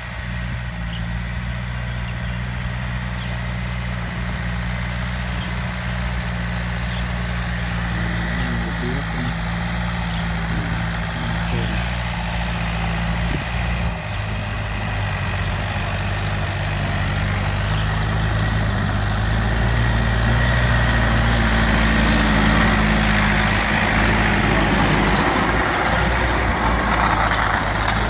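Yanmar tractor's diesel engine running steadily under load while its rear rotary tiller churns wet soil. It grows louder over the last third as the tractor nears, with a rising hiss of tilled earth.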